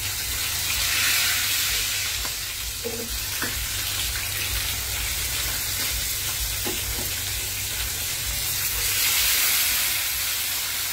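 Tilapia frying in hot oil: a steady sizzle, with a few light clicks and a low hum underneath.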